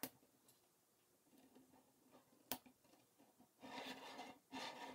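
Faint handling of K'NEX plastic pieces: a few small clicks, a sharp snap about halfway through, then a soft scraping rustle near the end as the assembled plastic frame is moved on the tabletop.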